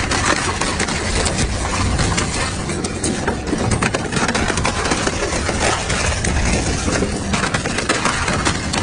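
Double-shaft shredder running under load, its cutter discs gripping and crushing a boxy domestic gas meter: steady machine noise with many rapid, irregular cracks and snaps.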